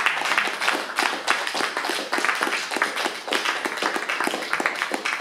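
Audience applause: many hands clapping at once, a dense steady patter of claps.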